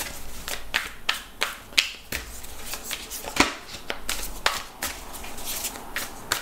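A deck of tarot cards being shuffled by hand, overhand, giving an irregular run of sharp snaps and clicks, two or three a second.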